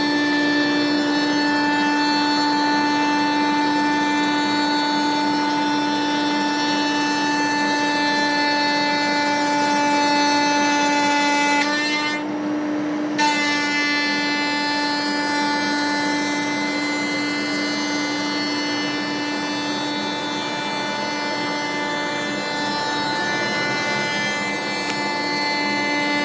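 CNC spindle turning a 1-inch three-wing spoilboard surfacing bit at 18,000 RPM while flattening a wooden board: a steady pitched whine over the hiss of the cutter shaving wood. About halfway through, the higher cutting sound drops away for about a second, then returns.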